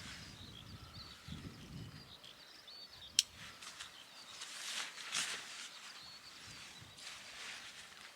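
Quiet outdoor ambience with faint rustling and a single sharp click about three seconds in.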